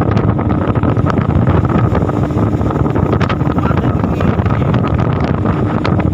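Small motorboat's engine running steadily under way, with wind buffeting the microphone.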